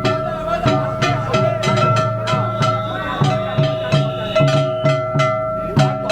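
Danjiri bayashi festival float music: drum and bell strikes in a steady beat of about two a second, with a ringing metallic tone held between the strikes.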